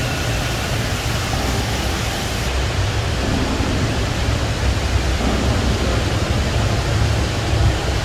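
Steady rushing of water with a deep rumble underneath, at the water wheel that drives the saltworks' old brine pumps.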